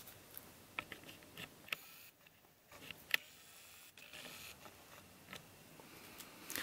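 Faint handling noise of a small cardboard puzzle box being turned over in the hands: light rustling with a few sharp little clicks and ticks of fingers on the card, the sharpest about three seconds in.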